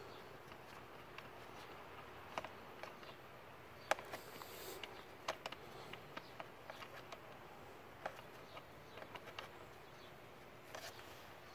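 Faint, irregular clicks and scrapes of a hand rummaging in a motorcycle's plastic airbox against the foam air filter. The sharpest knock comes about four seconds in, followed by a short scratchy rustle.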